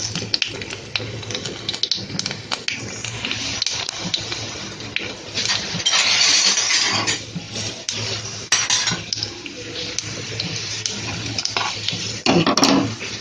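Mustard seeds and vadagam frying in hot oil in a clay pot: a steady sizzle full of sharp crackles and pops, the tempering spluttering as it should, swelling louder about six seconds in.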